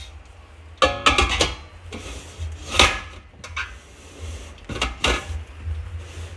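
Spotted babylon sea snails and corn being dropped into a metal steamer pot: a few separate clattering knocks of shell and food on metal, some ringing briefly.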